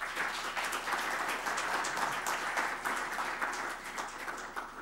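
Small audience of about two dozen people clapping, many hands at once, dying down a little near the end.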